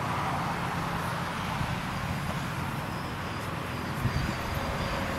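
Outdoor ambience dominated by wind buffeting the microphone, over a steady low hum, with a couple of soft low thumps about four seconds in.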